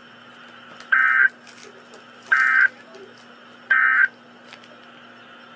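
Three short bursts of EAS SAME digital data tones, the end-of-message code that closes a weather radio alert, about a second and a half apart. A faint steady hum runs underneath.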